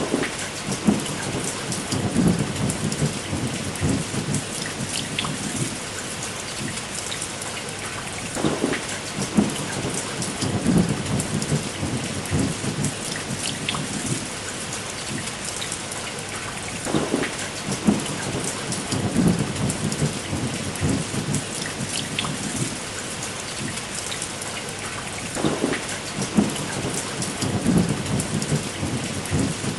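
Steady rain falling, with sharp crackles of a bonfire scattered through it. A low rumble swells and fades about every eight to nine seconds.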